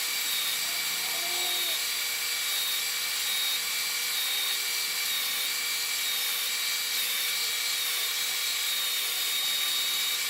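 Power sander running steadily, a high hiss with a thin whine, as a cedar box is pressed against it to sand its top and bottom flush with the sidewalls.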